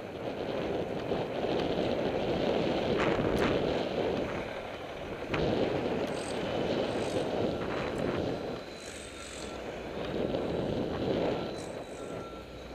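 Rushing noise of wind on a moving microphone mixed with city street traffic, swelling and easing. A few sharp clicks come about three and five seconds in.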